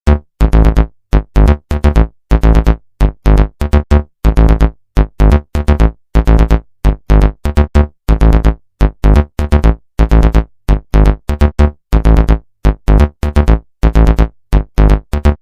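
Background music: an electronic synthesizer track with short, choppy notes and a heavy bass beat, about two to three hits a second.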